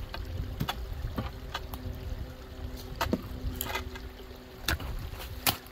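Low rumble of wind on the microphone, with scattered sharp clicks and snaps; the loudest comes near the end.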